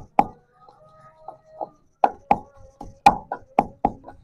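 Metal pestle pounding soaked poppy seeds and chickpeas in a wooden mortar: sharp knocks, two at the start, a few lighter ones, then a steady run of about three a second through the second half.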